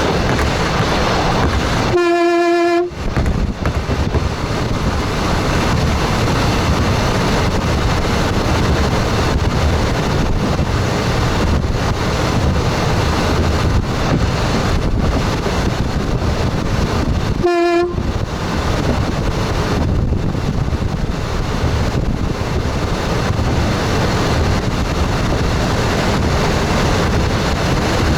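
Steady running noise of an electric express train heard from its front cab, wheels and wind on the move. The train's horn sounds twice on one steady pitch: a blast of about a second about two seconds in, and a short toot about two-thirds of the way through.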